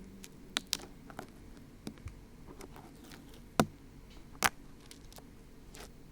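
Dried glue being picked and peeled off the silicone ear of a 3Dio binaural microphone, close up: scattered small crackles and clicks, with two sharper snaps just past the middle.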